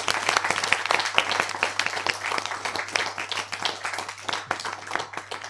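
Applause: a dense, irregular patter of many quick claps that thins out near the end, over a steady low hum.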